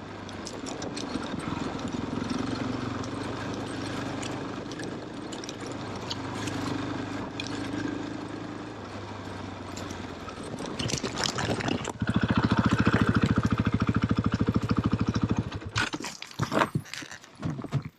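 KTM trail motorcycle engine running at low revs over rough ground, then revved hard and loud for a few seconds about two-thirds of the way through. It cuts out abruptly near the end, followed by a few scattered knocks.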